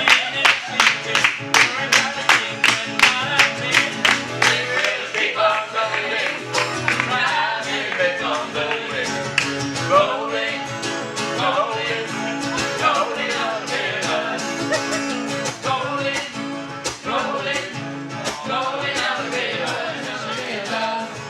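Live acoustic duo music: a guitar hit in sharp, even strokes, about three a second, for the first few seconds, then a fuller strummed passage with a melody, likely a singing voice, over it.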